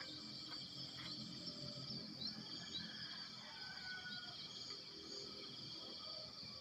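Faint steady high-pitched insect chorus with a few short bird chirps and a brief whistle over low outdoor background noise.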